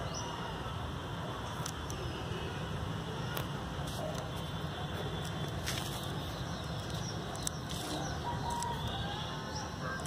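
Scissors snipping a few times through nylon mesh netting, over steady background noise with faint bird chirps.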